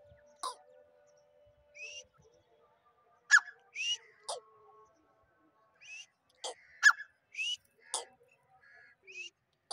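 Male grey francolin calling: about a dozen short, shrill notes in loose groups, some sharp and some rising in pitch, loudest about three and a half and seven seconds in.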